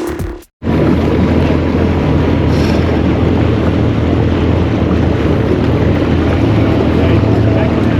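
Boat motor running steadily, with wind rushing over the microphone, starting abruptly about half a second in after a brief gap.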